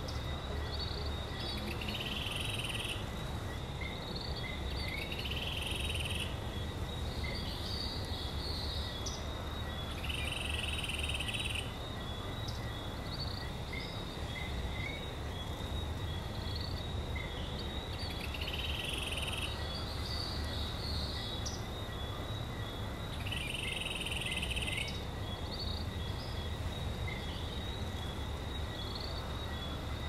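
Rainforest ambience: a steady high insect drone, with short creature calls repeating every few seconds, over a steady low rush of a waterfall.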